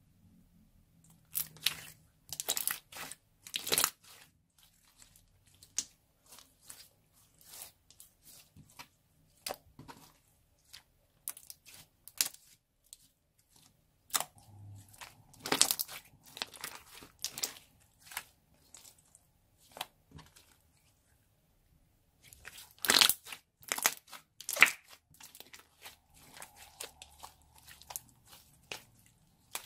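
Clear slime with melted lipstick mixed in, being kneaded, squeezed and stretched by hand. It gives irregular wet crackles and pops, with the loudest clusters near the start, about halfway and about three quarters of the way through.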